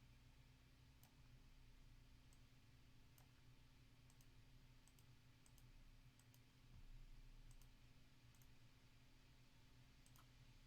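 Near silence with faint, scattered clicks of a computer mouse and keyboard, irregularly spaced, over a low steady electrical hum.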